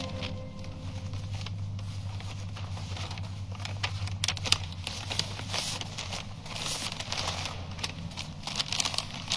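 Paper rustling and crinkling in irregular crackles as a letter is handled and unfolded, over a faint steady low hum.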